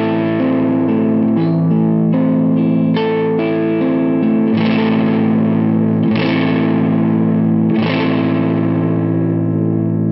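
Fender Stratocaster electric guitar played through a DOD Overdrive Preamp 250 pedal switched on, giving overdriven, distorted chords that ring and change. Fresh strums land about four and a half, six and eight seconds in.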